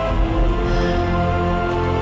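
Dramatic background soundtrack music of sustained, held notes, with a low deep hit just after the start.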